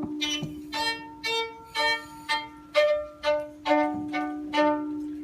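Violin playing a series of about ten short notes over a lower note held throughout.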